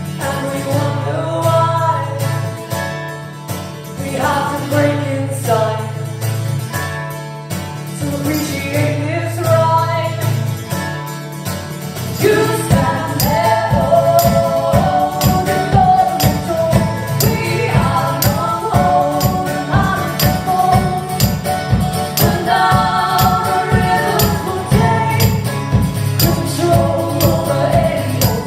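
Live folk-pop band music: voices singing in harmony over guitar and held low notes. About halfway through, a fast driving rhythm of sharp regular strokes comes in and the music gets louder.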